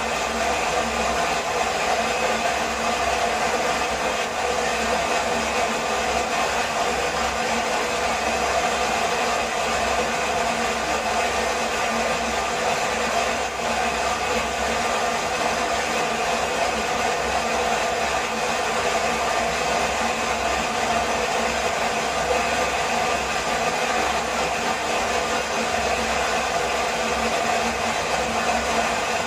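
Waterfall's steady rush of falling water, an unbroken loud noise.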